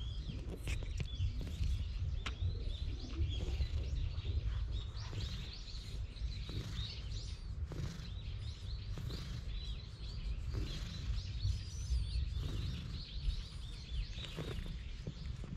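Small birds chirping again and again over a steady low rumble, with soft rustling and brushing close by as a hand strokes a cat's fur.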